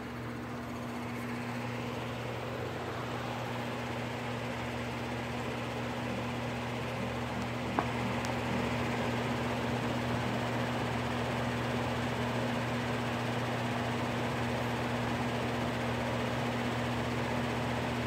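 Steady machine hum and hiss, slowly growing a little louder, with one sharp click about eight seconds in.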